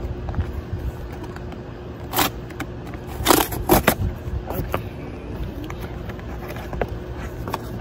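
A cardboard Priority Mail box being torn open by hand: several short ripping tears of cardboard between about two and four seconds in, with smaller crackles and scrapes, over a steady low rumble.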